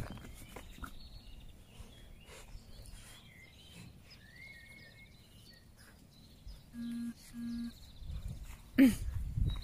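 Quiet garden ambience with small birds chirping and trilling. About two-thirds of the way through come two short, even low tones in quick succession. Near the end there is rustling and a single loud, brief yelp that falls in pitch.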